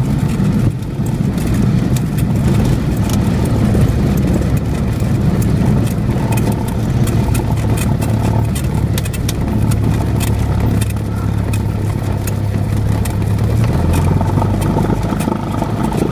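Cessna 172's piston engine running at low power, propeller turning, heard from inside the cockpit as the plane taxis on a grass strip. The engine note steps lower near the end.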